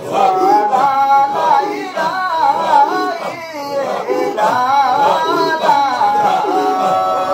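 Group of voices singing a Qadiriyya dhikr chant, a repeated melodic line sung together.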